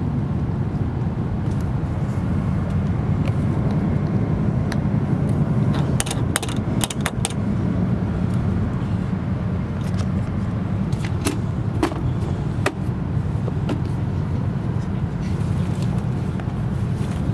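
Steady low rumble of an E7 series Shinkansen running, heard inside the passenger cabin. A cluster of sharp clicks about six seconds in and a few more taps around eleven to thirteen seconds.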